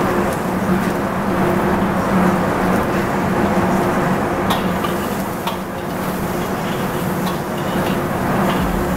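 Sliced shallots and garlic sizzling in oil in a large steel wok, with a metal ladle stirring and clinking against the pan a few times. A steady kitchen hum runs underneath.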